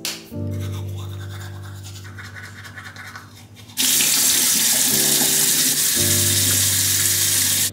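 Tap water running into a bathroom sink, a steady hiss that starts suddenly about four seconds in. Background music plays underneath.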